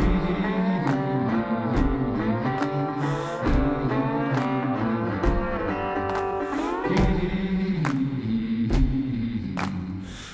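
Background music with a steady beat and a melody that slides between notes.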